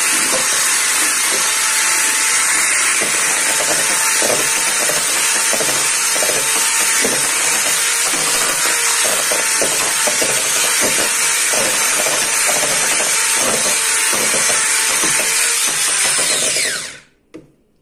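Handheld electric mixer running steadily, its beaters working flour into thick cake batter in a stainless steel bowl and knocking against the bowl now and then. Switched off near the end, the motor winds down and stops.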